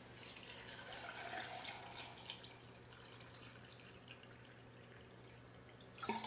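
Water poured from a bottle into a glass jar of tomatoes: a faint trickle that swells over the first two seconds and eases off, followed by a few small drips.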